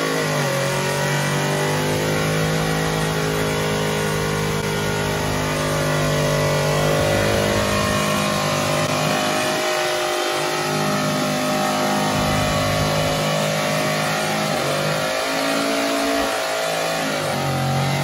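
Big lifted truck engine held at high revs under heavy load in a truck tug-of-war. The pitch stays steady for long stretches, sagging and climbing back a couple of times near the end.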